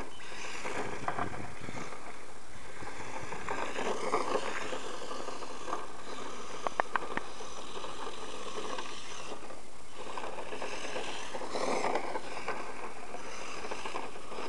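Brushless electric motor of a Traxxas Mustang VXL radio-controlled car whining up and down in pitch as it speeds up and slows, over a steady hiss of tyres on wet pavement. Three sharp clicks about seven seconds in.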